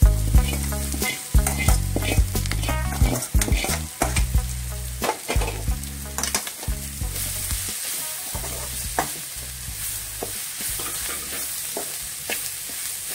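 Metal spatula scraping and tapping in a kadai as prawns are stirred through frying onions, with many quick strokes, busier in the first half, over a steady sizzle of hot oil.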